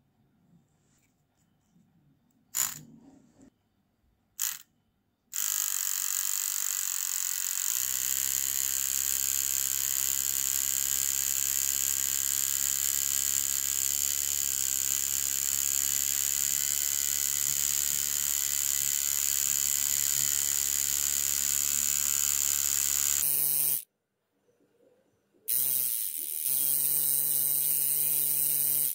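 Homemade tattoo machine's small DC motor running with a steady buzz as the needle is worked on skin. It starts a few seconds in after two short clicks, cuts out for about two seconds near the end, then runs again.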